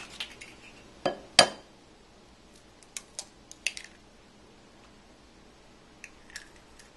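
An egg cracked against the rim of a glass bowl: two sharp knocks about a second in, then light clicks of the shell being broken open and pulled apart.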